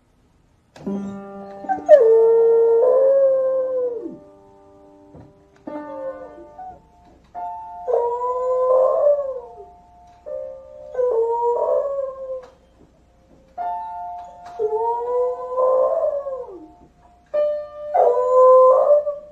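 A beagle pressing the keys of an upright piano with its paws, striking clusters of ringing notes, and howling along. There are about five long howls, each rising and then falling, between bursts of piano notes.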